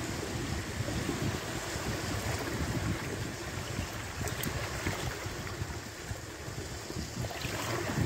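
Small sea waves lapping and washing over rocks and seaweed at the shoreline, with wind buffeting the microphone.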